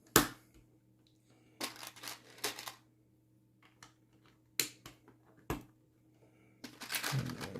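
Plastic Lego pieces being handled and pressed into place, with sharp clicks (the loudest just after the start, more around two seconds in and two single ones later) and a longer rattle of pieces near the end.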